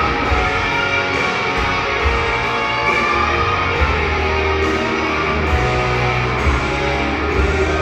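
Loud rock music with electric guitar and a steady bass.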